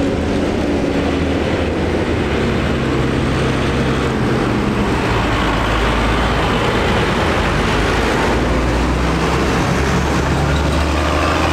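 A line of large farm tractors, New Holland, Case IH and John Deere, driving past one after another, their diesel engines droning deeply and steadily. The engine note shifts as each tractor draws near and passes.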